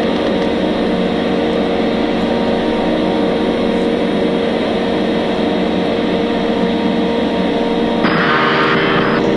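A loud, steady drone with several held low tones under a hiss. About eight seconds in, a harsh band of higher noise cuts in suddenly.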